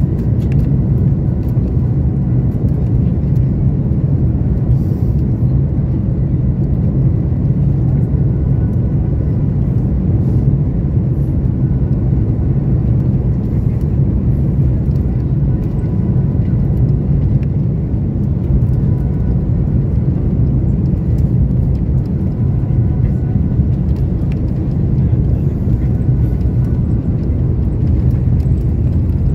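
Cabin noise in an Airbus A330-200 moving slowly on the ground: a steady low rumble and hum of the engines at low power, with a faint steady whine above it.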